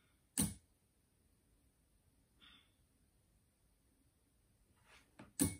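Home-built compressor-less minimum quantity lubrication (MQL) system firing a short, sharp jet of coolant through its needle nozzle into a glass bowl, twice, about five seconds apart. This is its timed delivery of a small dose of coolant every five seconds.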